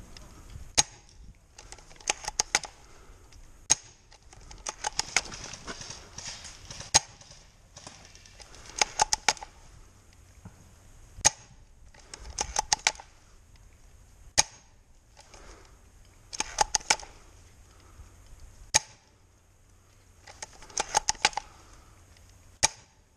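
Airsoft gunfire: sharp clicks in quick groups of two to five, with some single cracks, repeating every second or two.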